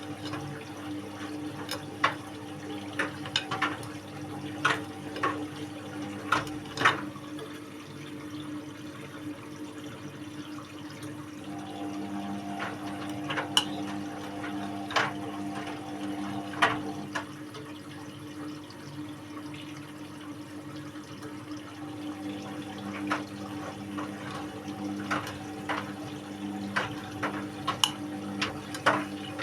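Indesit WIU81 front-loading washing machine partway through its quick 30° cycle: water runs and sloshes in the drum over a steady hum. Many short, irregular clicks and splashes sound throughout.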